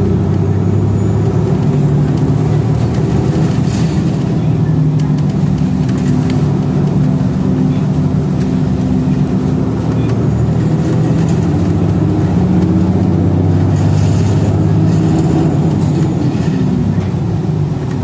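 City bus engine and road noise heard from inside the passenger cabin as the bus drives along, the engine note shifting up and down a little as it accelerates and eases off.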